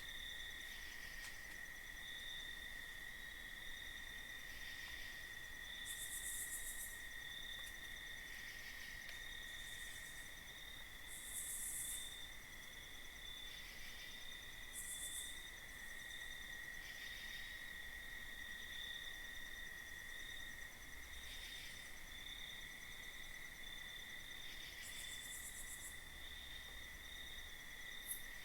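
Faint night chorus of crickets trilling steadily, with a short, very high-pitched insect buzz every few seconds.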